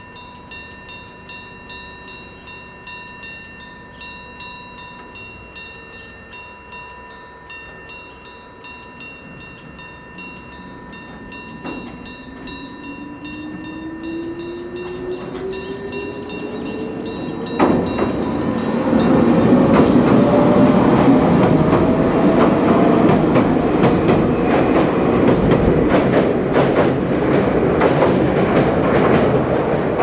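An electric-bell level crossing rings in a steady rhythm. From about 12 s in, an approaching electric train's motor whine rises steadily in pitch. From a little past halfway there is a loud rumble and clatter as the train runs across the steel girder railway bridge, drowning out the bell.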